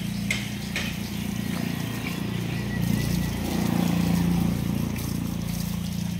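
Water from a hose spraying against a truck's wheels and underside, hissing and splashing, over a motor humming steadily. The hose noise is loudest about three to four seconds in.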